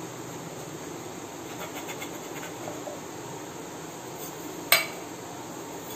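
Kitchen handling while doughnut rounds are cut from rolled dough with a box used as a cutter: a few faint knocks, then one sharp click of a hard object a little under five seconds in.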